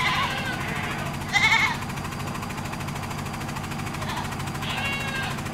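Goats bleating in their pens: three short calls, at the start, about a second and a half in, and near the end, over a steady low hum.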